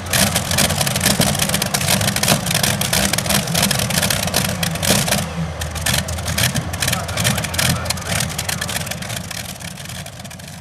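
Engine of a 7,500 lb modified pulling tractor idling loudly and steadily with a rough, rapid crackle, sitting at the line before its pull; the sound fades out near the end.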